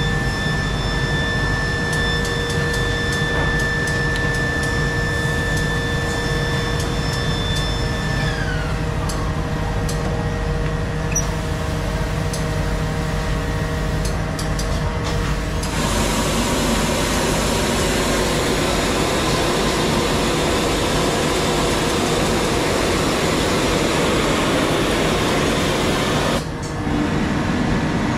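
Veit trouser finisher at work over a steady machine-room hum: a whine glides down and stops about a third of the way in, a few clicks follow as the trouser hems are clamped, then a loud steady hiss as the machine blows through and inflates the trousers, with a brief break near the end.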